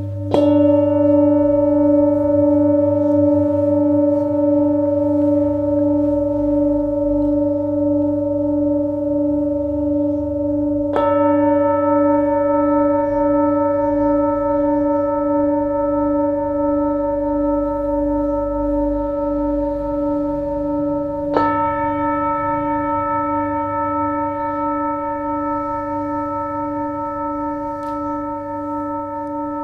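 Singing bowls struck three times, about ten seconds apart. Each strike adds to a long ringing chord that wavers in a slow beat, over a low steady hum.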